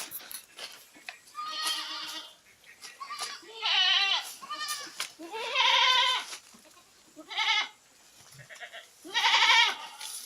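Goats bleating: about six separate calls, each quavering in pitch and lasting up to a second.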